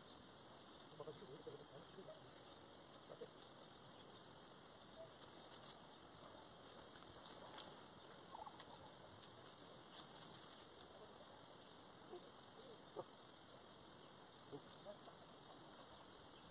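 A steady, high-pitched insect chorus drones on, with a few faint bird calls scattered through it.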